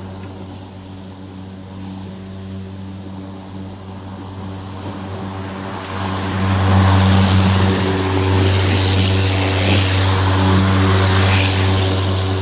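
Lawn mower engine running at a steady pitch, growing louder about halfway through, with a rushing hiss over the engine.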